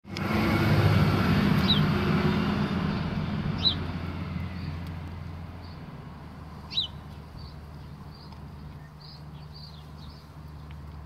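A low engine hum, loudest at first and fading away over about five seconds, with a few short bird chirps scattered through.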